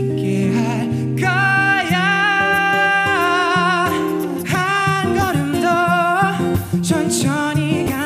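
A male singer sings a slow ballad into a microphone, holding long notes with vibrato over a recorded instrumental backing track.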